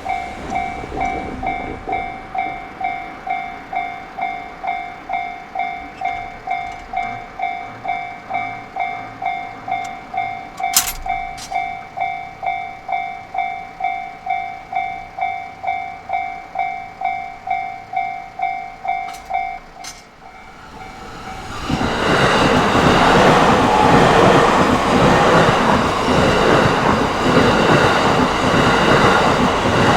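Electronic railway crossing bell ringing in a steady rhythm of about two strokes a second, which stops about two-thirds of the way in. A JR Takasaki Line electric train then passes the crossing loudly, wheels clattering over the rail joints.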